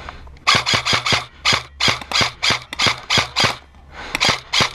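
A G&G CM16 Raider L airsoft electric rifle firing a string of quick single shots, about four or five a second, with a short pause near the end before three more.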